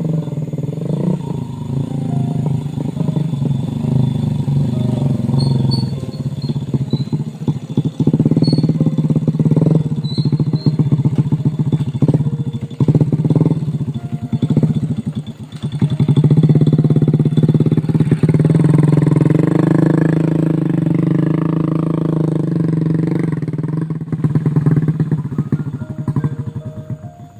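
Small motorcycle engine running under load, its speed and loudness rising and falling, with frequent knocks and rattles over a rough track; it fades out near the end.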